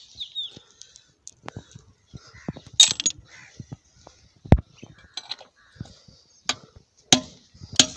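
Steel hand tools clinking and knocking on a dismantled diesel engine's casting as its bolts are undone: a run of separate sharp metallic clicks and clanks, with a few louder knocks in the second half.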